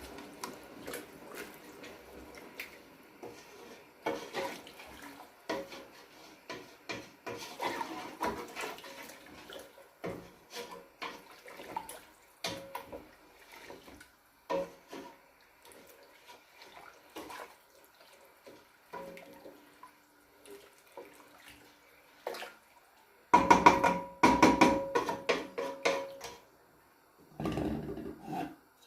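Kitchen clatter of pots, dishes and utensils: scattered knocks and clinks, some ringing briefly, with a loud run of clattering about 23 seconds in and a shorter one near the end.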